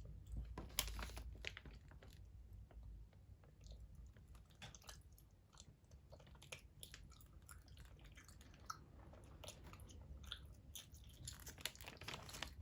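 A toddler chewing gummy candy: faint, irregular wet mouth clicks and smacks.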